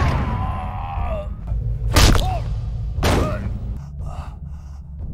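Film fight sound effects: a drawn-out pained cry near the start, then two sharp punch or kick impacts about a second apart, each followed by a short cry. A steady low rumble runs underneath, and the action dies away near the end.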